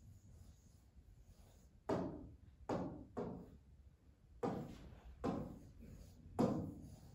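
Six irregular knocks as the writing tool or hand strikes the glass of a wall-mounted interactive touchscreen board while Arabic letters are written on it. Each knock is short, with a brief ringing tail.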